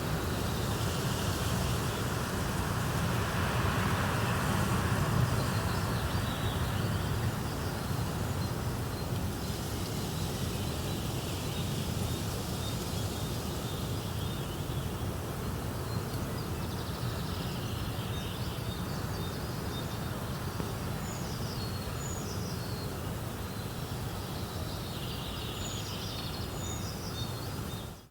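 Recorded outdoor ambience of wind blowing through rustling leaves: a steady rush over a low rumble. A few brief high chirps come in near the end, and the sound drops away sharply at the very end.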